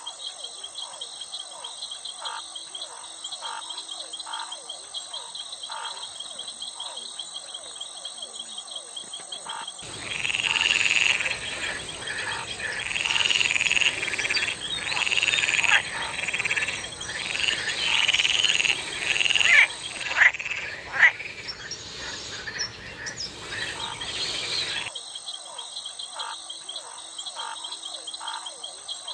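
Frogs croaking over a steady, high-pitched chirring of crickets or other insects, with short calls repeating about once a second. From about ten seconds in, a louder run of frog croaks comes in, each a few tenths of a second long, with several sharp louder calls near the end of the run. The run cuts off abruptly about twenty-five seconds in, leaving the insects and the softer calls.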